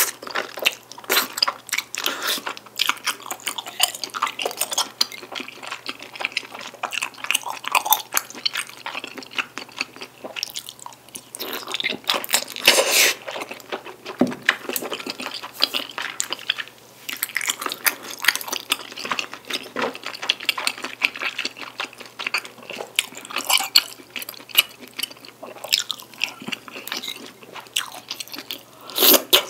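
Close-up chewing of jjajang tteokbokki, chewy rice cakes and noodles in black bean sauce, with many small wet clicks and smacks of the mouth. There is a louder burst about thirteen seconds in.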